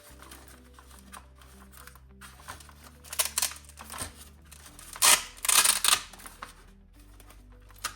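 Rustling and scraping of wires and plastic parts being handled and pushed into place, in two loud bursts: one about three seconds in, and a longer one about five to six seconds in. Background music with held bass notes plays underneath.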